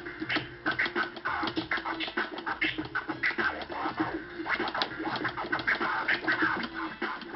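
Turntable scratching: a vinyl record pushed back and forth under the hand while the other hand works the mixer's crossfader, chopping the sound into rapid, irregular short cuts over a steady held tone.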